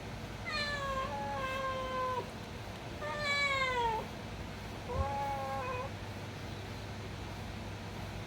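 Domestic cat meowing three times, drawn-out calls, the second ending with a falling pitch, typical of a hungry cat asking for food. A steady low hum runs underneath.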